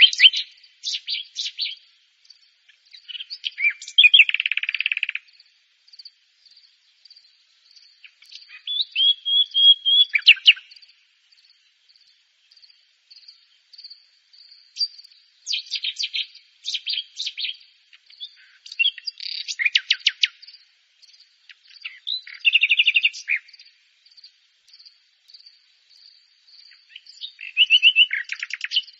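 Common nightingale singing in separate phrases a few seconds apart, each a quick run of rapid repeated notes and short whistles, over a faint, steady, high insect chirping.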